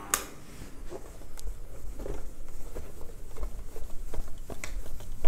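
Whiteboard being wiped clean: repeated scuffing and rubbing strokes across the board, with a sharp click just after the start.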